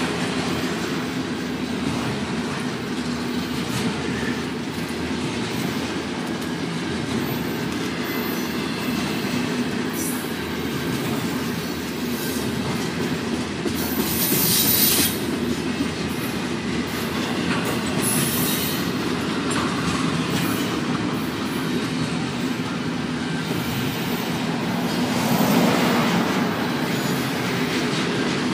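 Double-stack container train's well cars rolling past: a steady rumble of steel wheels on rail, with clicks over the rail joints and a brief high wheel squeal about halfway through.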